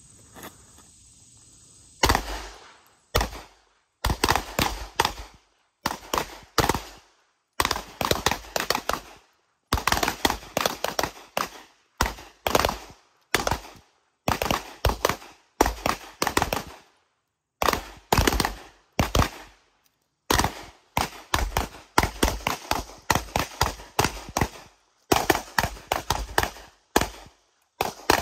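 Several pistols firing at will along a shooting line, sharp shots in quick uneven clusters that overlap, with short pauses between them, starting about two seconds in.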